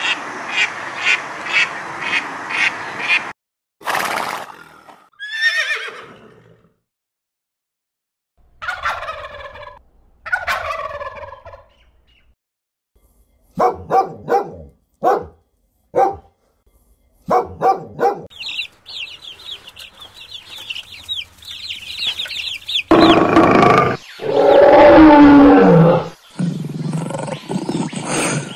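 A sequence of different animal calls. It opens with a rhythmic run of quacks from ducks, about three a second. After a few drawn-out falling calls, a dog barks in short, sharp bursts around the middle. A high, rapid chatter follows, and near the end comes one long, loud call that falls in pitch.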